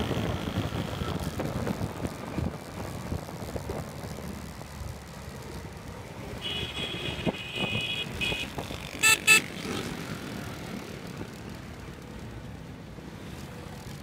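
Street traffic heard from within moving traffic: a steady rumble of engines and wind, a high beeping horn for about two seconds past the middle, then two short, loud honks.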